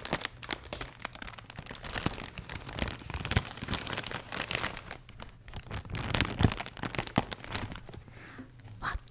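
Close-miked crinkling and rustling of product packaging being handled and opened: a rapid run of small crackles that eases off for a moment near the end.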